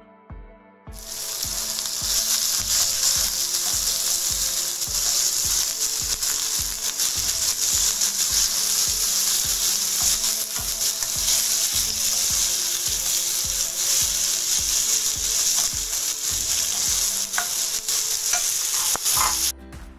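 Diced meat with onion, garlic and tomato sizzling in hot oil in a granite-coated wok, stirred with a spatula. The loud sizzle starts about a second in and stops suddenly just before the end, with a few scrapes of the spatula on the pan shortly before it stops.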